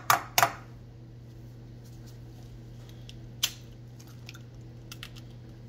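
A raw egg is knocked against the rim of a dish, giving two sharp cracking knocks right at the start. A single sharp click follows about three and a half seconds in, with faint ticks near the end, over a steady low hum.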